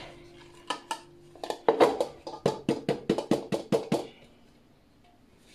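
Hands tapping and knocking on the bottom of an upturned fluted cake pan set on a plate, to loosen the baked cake so it drops out. A couple of taps come first, then a quick run of taps that stops about four seconds in.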